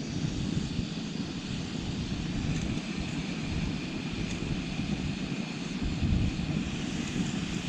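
Jetboil gas stove burner running with a steady roaring hiss.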